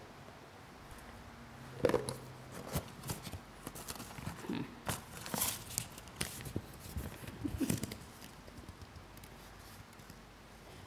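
Paper slips rustling and crinkling as they are picked up and unfolded close to a lectern microphone, with a few sharper clicks among them.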